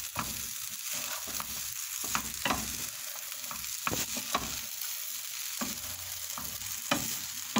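Vegetable fried rice sizzling in a non-stick pan while a wooden spoon stirs it, with irregular scrapes and knocks of the spoon against the pan over a steady hiss.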